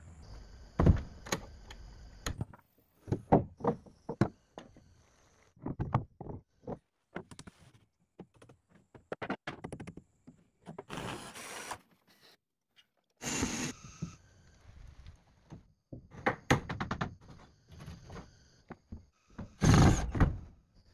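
A series of separate wooden knocks and thumps at uneven spacing, with a few short bursts of noise in the middle, from work on a plank-built wooden cabin.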